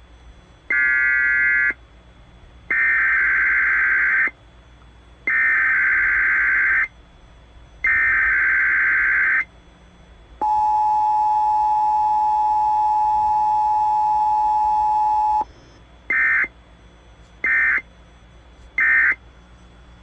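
Emergency Alert System tones off an AM radio broadcast: four loud bursts of screechy SAME data tones about a second apart, then a steady two-tone attention signal held for about five seconds, then three short end-of-message data bursts near the end. Faint hiss lies between the bursts.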